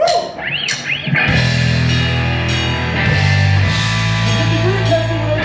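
Live rock-and-roll band playing, with electric guitar, bass and drum kit; the full band comes in together about a second in.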